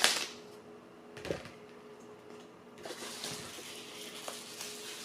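Handling noises as a phone and its case are worked by hand: a sharp rustle at the start, a light knock about a second later, then a couple of seconds of rubbing, over a faint steady hum.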